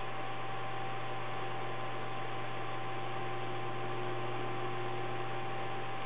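Steady hiss with a low electrical hum and faint steady tones, unchanging throughout, with no calls, clicks or other distinct sounds.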